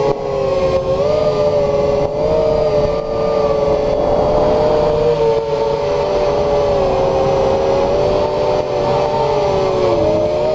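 FPV quadcopter's motors and propellers whining as picked up by the onboard camera's microphone: several close pitches that rise and fall together with the throttle, dipping briefly near the end.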